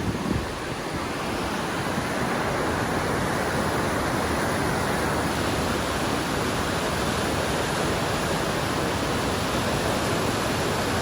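Mountain creek cascade rushing: a steady wash of white water that grows a little louder about two seconds in.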